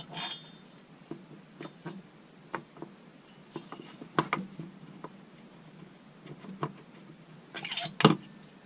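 Scattered light clicks and knocks of metal parts being handled as a Husqvarna 181 chainsaw cylinder is set onto the crankcase and lifted off again to find where it binds, with a louder clatter near the end.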